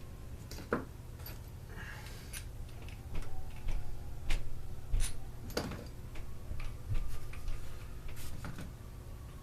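Irregular clicks, taps and light knocks of small plastic and metal parts and tools being handled while reassembling a Stihl BG 56 C leaf blower, with two short scraping slides, about a second in and again near the middle, over a steady low hum.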